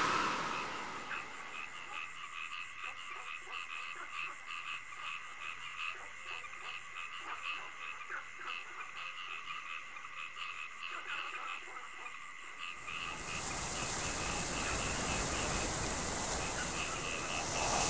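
Night chorus of frogs croaking in rapid, evenly repeated calls over a steady high insect-like trill. About thirteen seconds in, a steady rushing noise swells up over the chorus.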